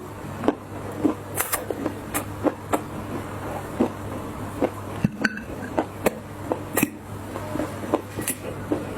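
Clay being crunched and crumbled, a string of sharp, irregular crackles about a second apart.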